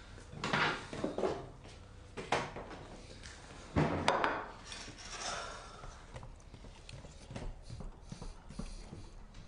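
Knocks and rattles of things being handled at a kitchen counter, the loudest about four seconds in, followed by a few lighter clicks.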